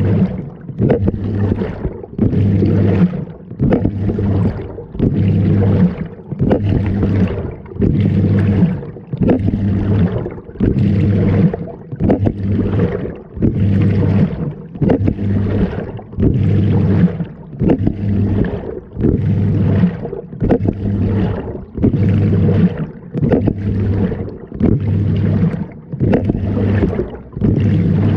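Water sloshing in a tumbling washing machine drum, surging in a steady rhythm about once a second, with a low motor hum between some of the surges.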